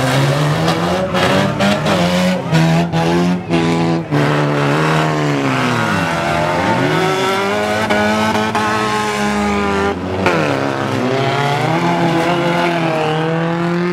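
Several car engines racing hard round a track, their notes rising and falling with revving and overlapping as the cars pass, with a few sharp knocks in the first four seconds or so.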